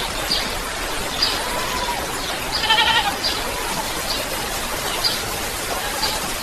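Steady rain hiss with small birds giving short high chirps about once a second. A single wavering, bleat-like animal call sounds about two and a half seconds in.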